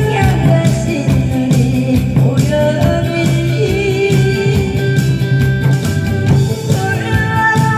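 A woman singing into a microphone over loud amplified music with a steady beat.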